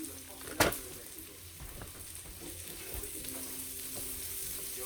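Chopped smoked sausage sizzling steadily in a frying pan on a gas stove, with one sharp knock about half a second in.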